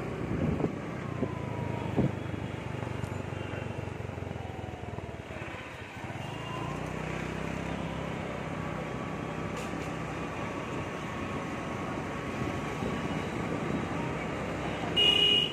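A small two-wheeler's engine runs steadily under way, with road and wind noise, while riding. There is a knock about two seconds in and a brief high beep near the end.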